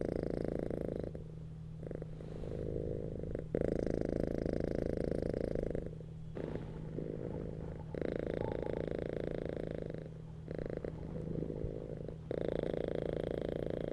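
Domestic cat purring steadily while being stroked, the purr alternating between louder and softer stretches, a louder stretch about every four seconds.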